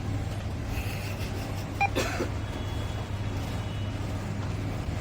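Steady low rumble of street traffic. A short single beep, typical of an ATM keypad, comes a little under two seconds in, and is followed at once by a click.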